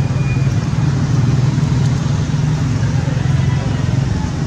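A motor running steadily with a low, even hum.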